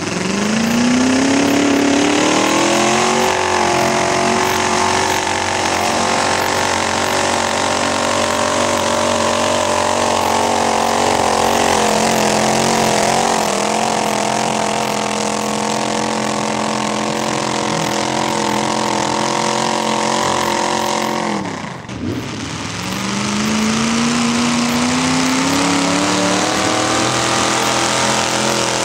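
Mud-bog trucks' engines at high revs in a mud pit. One engine climbs in pitch over the first few seconds and holds high, then breaks off abruptly about two-thirds of the way through. A second engine revs up, its pitch climbing steadily to the end.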